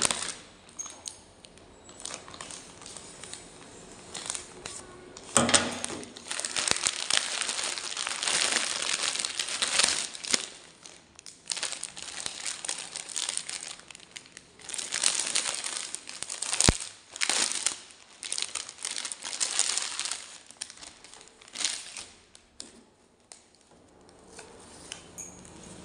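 Plastic packaging being unwrapped: a courier mailer and a clear plastic garment bag crinkling and rustling in irregular bursts with short pauses between them.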